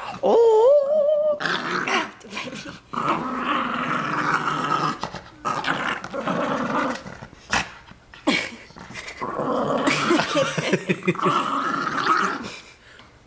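Small dog growling in play while being roughhoused by hand, in long spells with short breaks. Near the start there is a brief high whine that rises in pitch and then holds.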